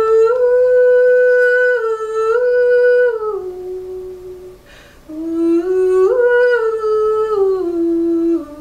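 Women's voices humming a slow wordless melody, a cappella, in two phrases. Each phrase steps up in pitch, holds, then steps back down, and the second begins about five seconds in.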